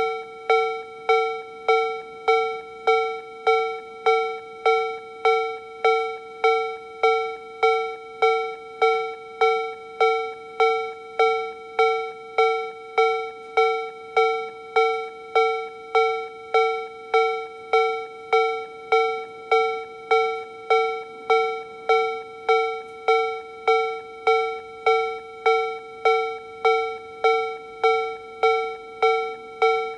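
Tōhō Denki TA3-VR electronic level-crossing alarm generator sounding the Tobu 'B/C' warning tone at its slow tempo. It is a bell-like 'kan-kan' strike repeating evenly about one and a half times a second, each strike dying away before the next, at a constant volume.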